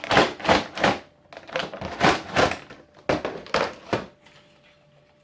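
Hard plastic clicking and clattering as pieces of a batting-helmet standings display are handled and pushed into place: a quick, uneven run of clicks for about four seconds, then it stops.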